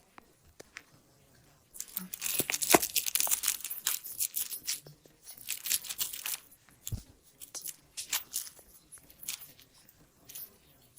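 Crinkle paper inside a corduroy cat toy crackling as the toy is handled. The crackling starts about two seconds in, is dense for some four seconds, then comes in shorter bursts.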